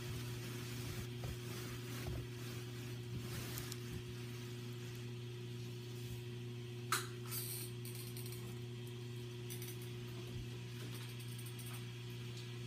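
A steady low mechanical hum, with a single light click about seven seconds in, followed by a brief higher rustle.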